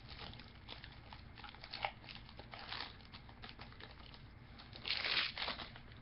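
A trading card pack's wrapper being torn open and crumpled, a run of crinkling crackles with a louder burst of crinkling about five seconds in.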